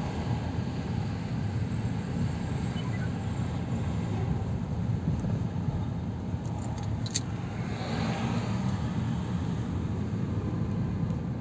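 Steady low rumble of a car driving, engine and tyre noise heard from inside the cabin, with a few faint clicks about seven seconds in.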